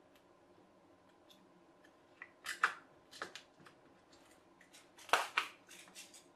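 Light clicks and rattles of small objects being picked up and put down by hand, in two irregular clusters: one about two seconds in and a louder one about five seconds in.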